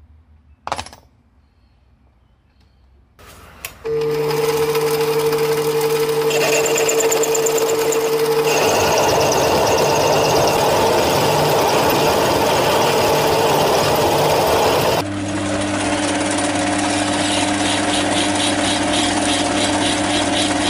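A mini lathe running with a steady whine from about four seconds in, turning a drill bit that has been annealed for reshaping, with rough cutting noise from the tool in the middle. Near the end, a hand file rasps against the spinning bit in quick, even strokes.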